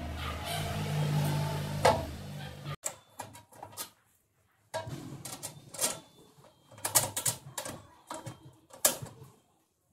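Hands working on a rice mill's sheet-metal husk blower unit: scattered metal clicks and knocks. A low steady hum in the first few seconds cuts off suddenly.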